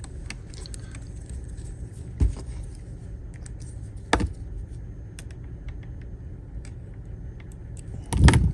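Light clicks and taps of small RC truck parts and tools being handled, with sharp knocks about two seconds and four seconds in and a louder cluster of knocks near the end, over a steady low hum.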